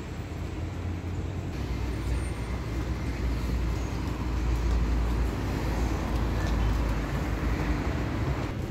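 Low rumble of road traffic with general street noise, swelling in the middle and easing off near the end.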